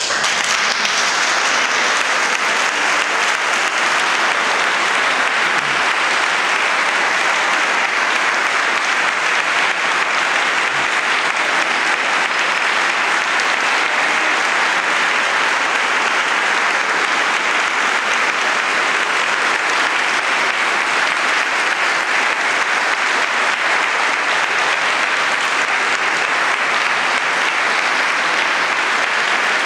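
A large audience applauding, steady and unbroken.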